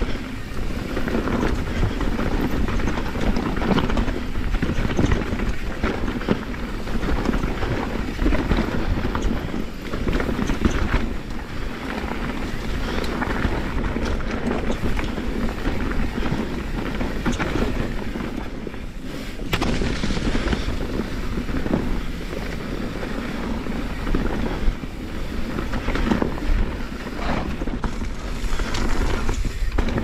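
Kona Process X mountain bike descending rocky singletrack at speed: tyres on dirt and rock with a constant clatter of knocks and rattles from the bike.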